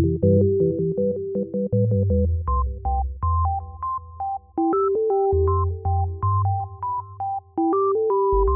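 Background music: an electronic keyboard tune of short, evenly repeated notes over a bass line.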